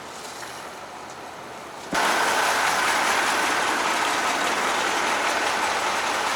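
A quiet steady hiss, then, from a sudden change about two seconds in, a louder steady running noise of a vehicle or machine.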